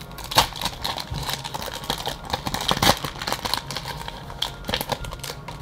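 Foil booster pack wrapper crinkling as it is torn open by hand and the cards are pulled out, with irregular sharp crackles; the loudest come about half a second in and near three seconds in.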